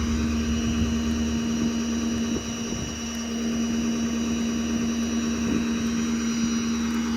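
Ford 6.7 Power Stroke V8 turbo-diesel engine idling steadily, with a constant hum.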